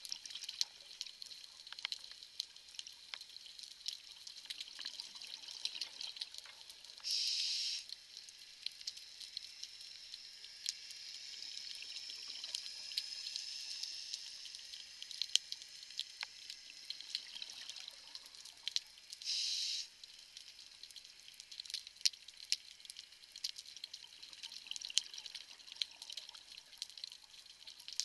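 Underwater coral-reef ambience: a dense, steady crackle of small sharp clicks, typical of snapping shrimp. Two short loud bursts of hiss break in, about seven seconds in and again about twelve seconds later.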